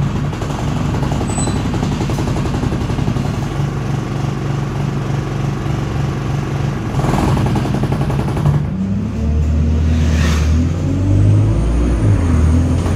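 A single-deck bus's engine and drivetrain heard from inside the passenger saloon, running steadily. About nine seconds in the engine note changes and rises as the bus pulls harder. There are two short hisses, about seven and ten seconds in.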